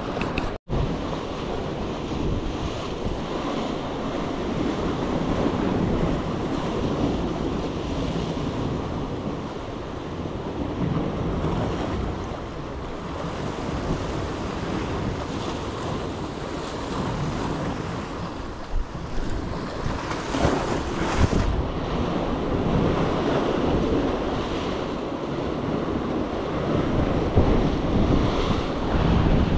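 Sea waves washing against a rocky shore, with wind noise on the microphone.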